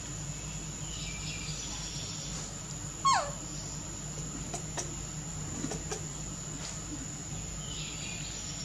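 A single short, high animal squeak about three seconds in, sliding steeply down in pitch. It sits over a steady low hum, with faint high chirps before it and near the end.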